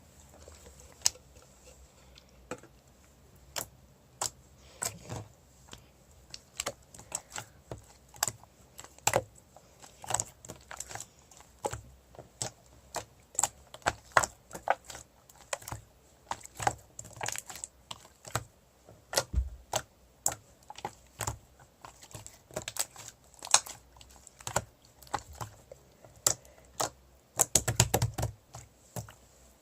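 An irregular series of sharp clicks and taps, one to three a second, like keys being struck, with a quick cluster of heavier knocks near the end.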